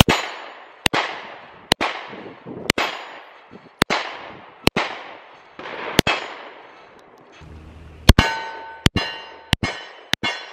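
Springfield 1911 RO Elite Operator pistol in 10mm firing: seven single shots about a second apart, each trailing off in an echo. About eight seconds in, a quicker string of shots follows, with steel targets ringing after each hit.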